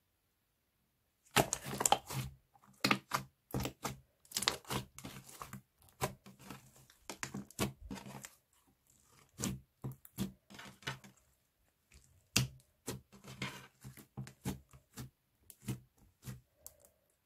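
Slime being squeezed and worked by hand, giving rapid irregular clicks and crackles in clusters, starting after about a second of silence.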